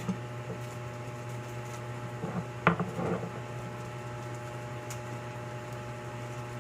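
A few short clinks and knocks of a cooking utensil against a frying pan as chicken is stirred, bunched together about two to three seconds in, over a steady low hum.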